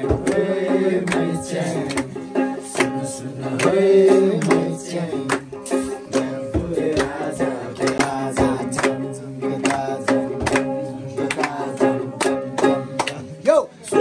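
Background music: a plucked-string melody over a drum beat.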